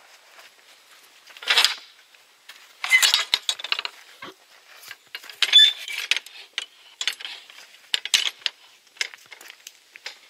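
Metal latch and fittings of a wooden five-bar gate clanking and clinking in several sharp bursts as the gate is unlatched and pushed open, one clank ringing briefly.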